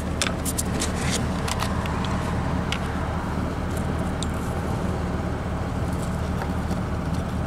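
Pickup truck engine idling steadily close by. Small sharp clicks and taps of the license plate lamp socket and bulb being handled come mostly in the first few seconds.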